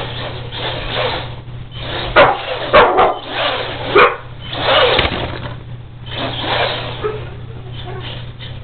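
Electric Axial RC truck on a LiPo battery sliding its tyres across a tile floor, a run of swelling, fading hisses as it drifts, with several sharp, loud knocks between about two and four seconds in. A steady low hum lies underneath.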